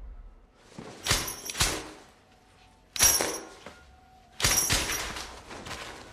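Metal shower-curtain hooks scraping and jangling along a metal rod as a shower curtain is yanked aside. It comes in three sharp bursts about a second and a half apart, the first one doubled.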